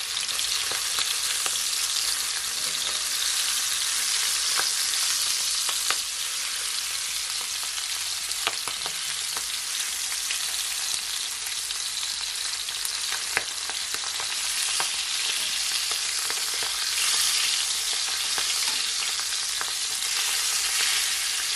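Salmon steaks shallow-frying in olive oil in a skillet over medium heat: a steady loud sizzle with a few short clicks scattered through.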